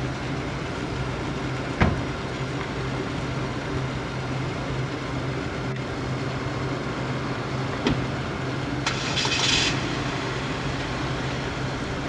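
Steady low mechanical hum of outdoor machinery, with a sharp knock about two seconds in and another about eight seconds in, and a brief hiss a little after that.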